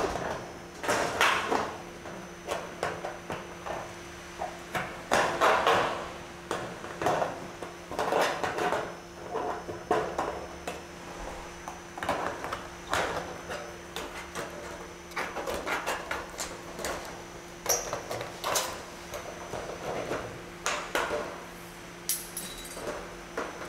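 Tin snips working the edge of a COLORBOND steel fascia: a run of short, irregular metallic crunches and clicks from cutting and handling the sheet, over a faint steady hum.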